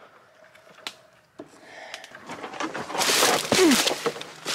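Footsteps crunching through dry leaf litter and brush, twigs cracking and snapping, as a person pushes through a briar thicket. It starts sparse and gets dense and loud after about two seconds.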